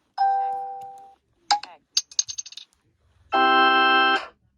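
Samsung Galaxy S8+ notification tones played one after another: a single chime that fades over about a second, then a quick run of short high notes, then a steady buzzy tone lasting about a second.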